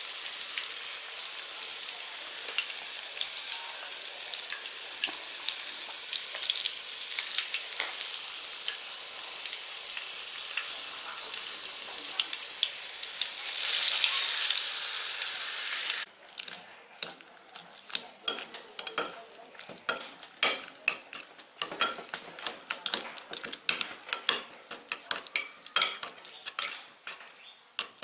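Pork pieces deep-frying in a wok of hot oil: a steady, dense sizzle that swells louder about fourteen seconds in. It cuts off suddenly a couple of seconds later, followed by a metal spoon clicking and clinking against a ceramic bowl as a sauce is stirred.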